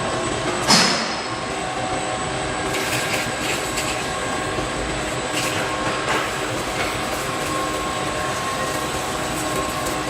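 Industrial machinery running with a steady mechanical whine and noise, and one sharp loud bang about a second in.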